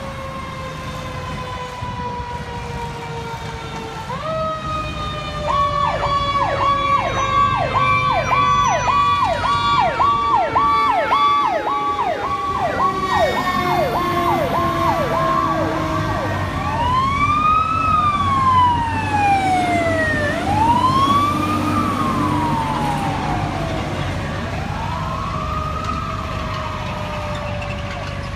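Fire apparatus sirens on an emergency response. One siren tone slides slowly downward throughout, like a mechanical siren winding down. A second siren starts about four seconds in with a fast high-low pattern, then from about halfway switches to a slow rising-and-falling wail. A truck engine rumbles beneath the sirens.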